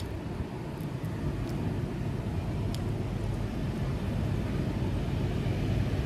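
Steady low rumble of road traffic, slowly growing louder, with a few faint clicks.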